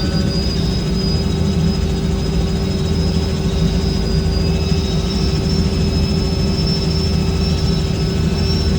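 Helicopter in flight, heard from inside the cabin: a loud, steady drone of engine and rotor with a thin high whine held throughout.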